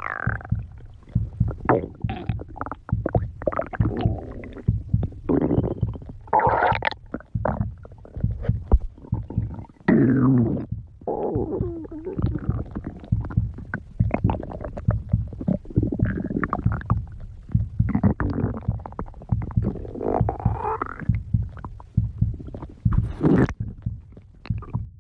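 Human stomach growling: a continuous run of gurgles and crackly rumbles, broken every few seconds by rising and falling squeals.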